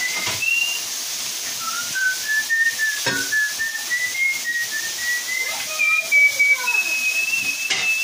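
A person whistling a wandering tune, note after note, over the steady sizzle of potato strips frying in hot oil in a pan. There are a couple of sharp clicks, one about three seconds in and one near the end.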